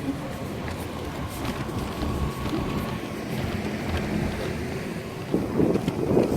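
Outdoor city ambience: a steady low rumble of engines with wind buffeting the microphone, and a louder jumble of sound near the end.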